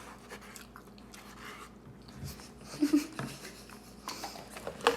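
Quiet eating sounds: chewing and mouth noises with a few small clicks, and a short hum-like vocal sound about three seconds in.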